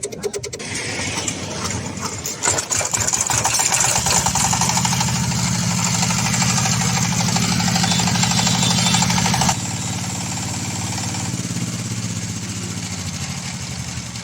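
EMEI ZS1100 single-cylinder diesel engine running with a fast, even firing beat. About two and a half seconds in it grows louder and runs hard and steady, then about nine and a half seconds in its level drops suddenly and it carries on running more quietly.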